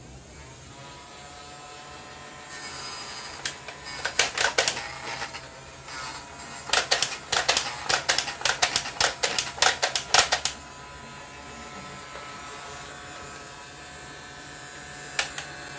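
Toy gun clicking in two rapid bursts over a steady electric hum, with one more click near the end.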